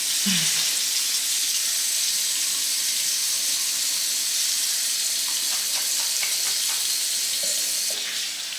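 Tap water running steadily into a bathroom sink, a constant hiss with a few faint splashes.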